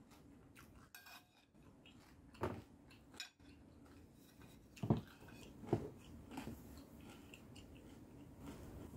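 Close-up chewing of a mouthful of crispy Thai salad (crispy fish, crispy pork, pork rinds), faint, with a few short crunches and clicks scattered through it.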